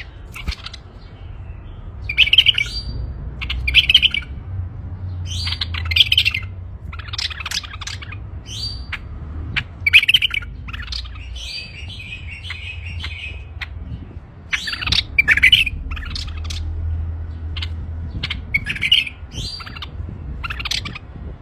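A male bulbul singing loud, varied phrases in short bursts every second or two, over a low steady hum.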